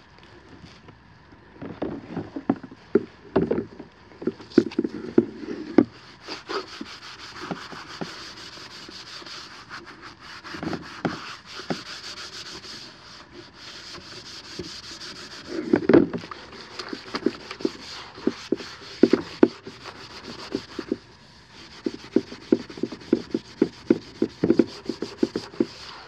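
Scotch-Brite heavy duty scour pad scrubbing a wet Ninja Sizzle griddle plate in soapy water: irregular back-and-forth rubbing strokes. Scattered sharp knocks as the plate shifts against the plastic tub, loudest about sixteen seconds in.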